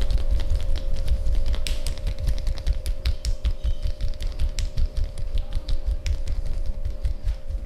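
Hands rapidly tapping and patting on the body in a percussive massage: a fast, irregular run of soft thuds with sharp slapping clicks, several a second. A steady tone runs underneath.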